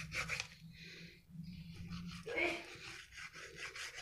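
Knife cutting through a pan-cooked bread pizza, scraping and crunching against the steel pan in short, uneven strokes.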